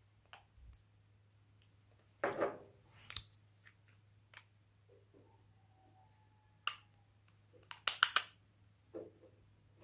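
Slime being squeezed and poked by hand, giving scattered sticky pops and clicks with quiet gaps between them; the loudest is a quick run of three or four pops about eight seconds in. A faint steady low hum lies underneath.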